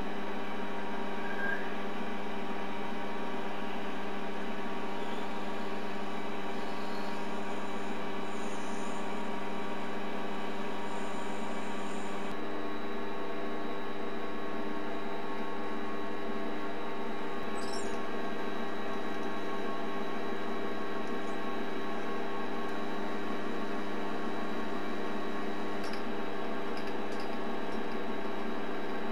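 Optimum D180x300 mini lathe running at steady speed, its motor and drive giving a constant whine, while a drill bit held in the tailstock chuck bores into the turning workpiece.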